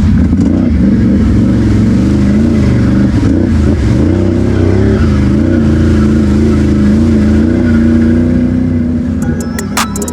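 ATV engine running while being ridden, its pitch rising and falling with the throttle. About nine seconds in, music starts over it.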